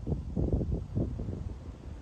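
Gusty wind buffeting the microphone: a low, uneven rumble that swells and drops several times a second.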